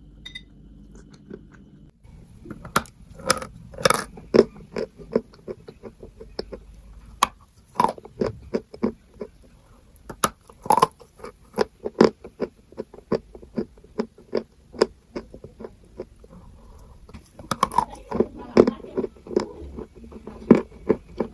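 Chalk being bitten and chewed: after about two seconds, a dense, irregular run of sharp crunches, several a second.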